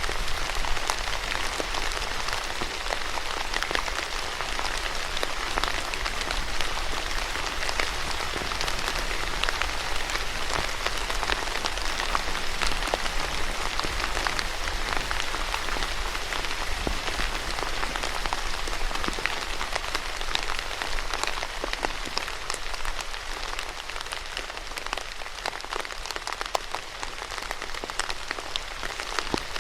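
Steady rain falling on a surface, a dense patter of many small drops with no thunder or wind.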